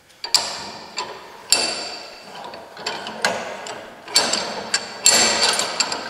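A bench vise's steel handle clanking as it is spun to close the jaws, sliding bar knocking against its stops. About five loud metallic clanks, each ringing on, with lighter knocks between.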